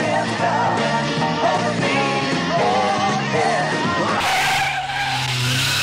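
A rock song with a singing voice, which cuts off about four seconds in to a car chase: tyres squealing with a held high screech over loud road noise and a running engine.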